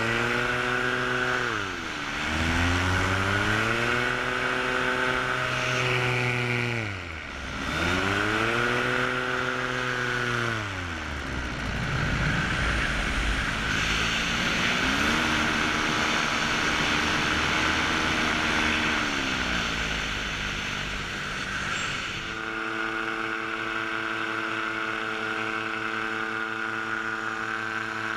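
Minari paramotor engine and propeller. In the first ten seconds the note drops and climbs back several times as the throttle is eased off and opened again, then it settles into a steady run from about three-quarters of the way through. There is a rush of wind on the microphone throughout.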